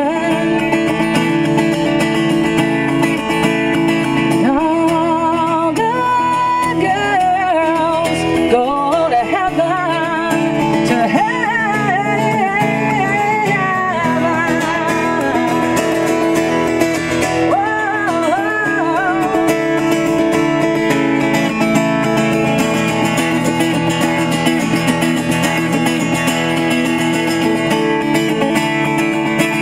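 Steel-string acoustic guitar strummed, with a woman's wordless vocal line with vibrato sung over it for the first half or so. About two-thirds of the way through the voice stops and the guitar plays on alone.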